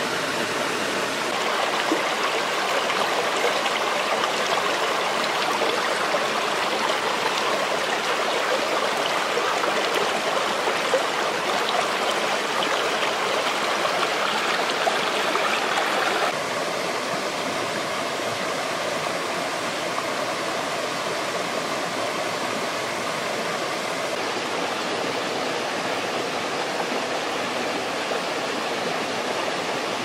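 A rocky stream flowing and splashing over stones in a steady wash of water. About halfway through it turns a little quieter and softer.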